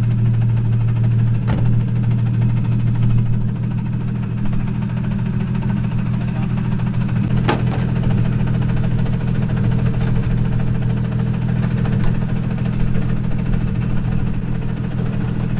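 Car engine idling with rod knock, the sign of a worn connecting-rod bearing, under a steady low hum broken by a few sharp clicks.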